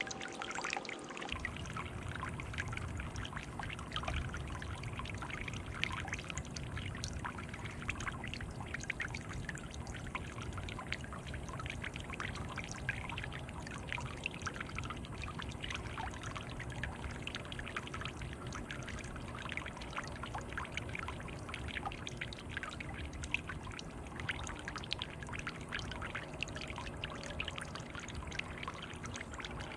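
Bird bath fountain bubbling steadily, water welling up through the perforated centre and splashing back into the stone basin in many small, constant splashes.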